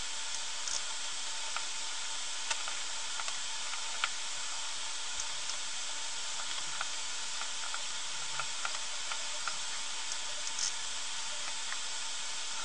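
Steady high-pitched hiss with a faint constant tone under it, broken by small scattered clicks.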